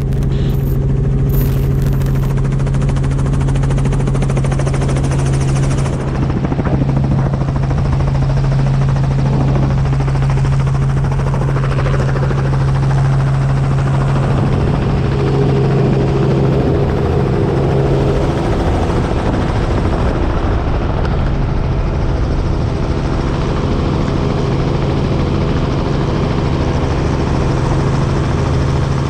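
Helicopter in flight with its doors open, heard from in and around the cabin: a steady low drone of rotor and engine over the rush of wind.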